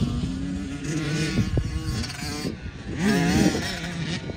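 Yamaha dirt bike engine revving on the track, its pitch rising and falling as the throttle opens and closes, with a strong rise about three seconds in. Wind buffets the microphone throughout.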